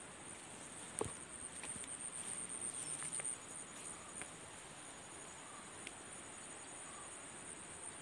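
Steady, high-pitched trilling of insects, crickets or cicadas, carrying on throughout. In the first few seconds, a few light steps and rustles through dry grass over stones.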